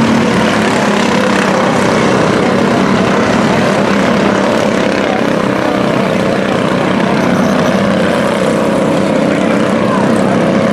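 Racing mini trucks' engines running hard at speed as several trucks lap the oval together, a loud, steady engine sound that never lets up.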